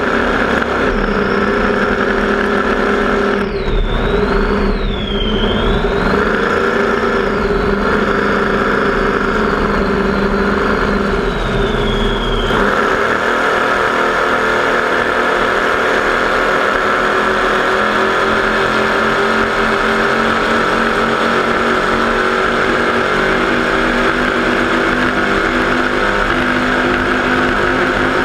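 Racing catamaran powerboat's engines running at a steady high speed, heard from on board with rushing wind and water. A high wavering whine rides over the engine for the first dozen seconds and then stops.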